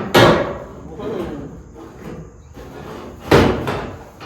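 Two loud slams about three seconds apart, each dying away within half a second: a body panel on a classic Chevelle being shut hard, metal striking metal.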